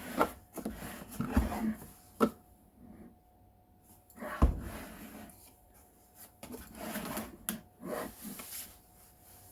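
Impact wrench's tool case being handled: scattered knocks, clicks and rubbing, with the sharpest knock about four and a half seconds in.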